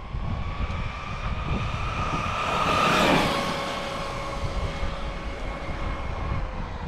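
High-speed RC car passing by, its motor whine growing louder, peaking about three seconds in, then dropping in pitch and fading as it goes away, over wind rumble on the microphone.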